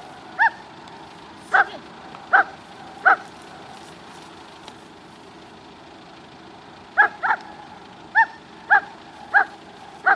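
A dog gives single barks: four in the first three seconds, a pause of about four seconds, then six more at a quicker, even pace from about seven seconds in. This is a protection-trained dog's guard barking at the decoy during a ZKS-style test.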